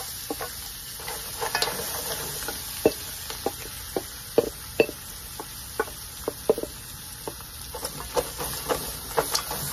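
Crab pieces sizzling in hot curry oil in a pot, with a spoon scraping and clicking against a glass bowl as the last of the seasoning is scraped in: many sharp clicks over a steady hiss.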